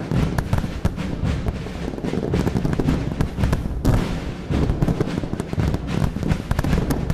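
Festive fireworks display: a dense run of crackling bursts and low thuds in quick succession, with no pause.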